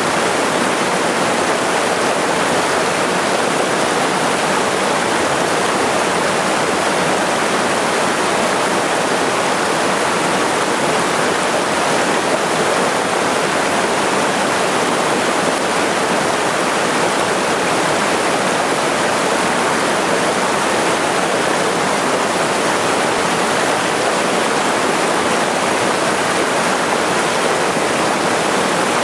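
Small cascade on a mountain stream pouring into a pool: a steady, unbroken rush of water, the stream running high with snowmelt.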